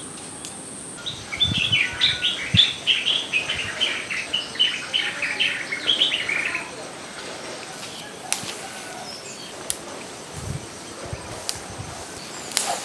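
A bird calling in a rapid run of short chirps for about five seconds, starting about a second in, followed by a few faint clicks.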